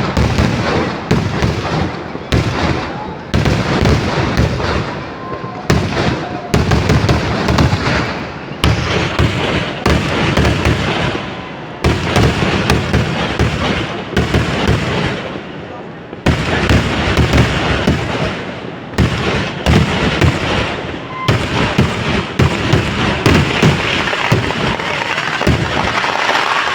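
Festival fireworks barrage: a rapid, almost unbroken string of loud bangs and cracks, many overlapping, each trailing off in an echo.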